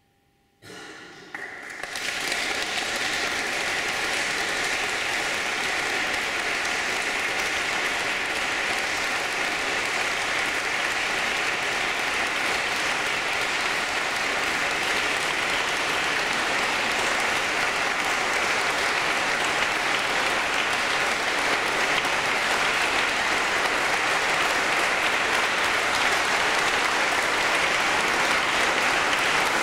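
Concert audience applauding: the clapping breaks out about half a second in as the last faint sung chord dies away, builds within two seconds, and holds as steady, dense applause.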